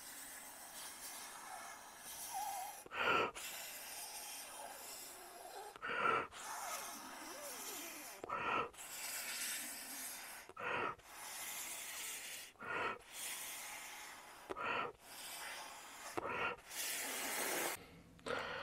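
Breath blown through a drinking straw onto curing UV resin to ripple its surface. It comes as a series of long steady puffs of about two seconds each, with a quick sharp in-breath between them.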